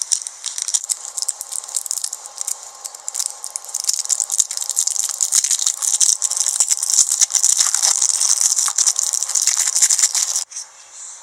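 Sticky slime being handled by hand: a dense, rapid crackling of fine clicks that stops abruptly near the end.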